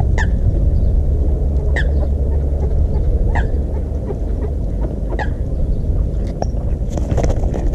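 A water bird calling four short, sharp notes, about one every second and a half, over a steady low rumble. A brief rustling flurry comes near the end.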